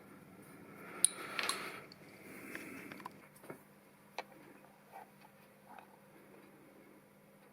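Small metal workshop parts being handled and fitted together: a sharp click about a second in, a brief rub or rustle, then a few light, scattered clicks.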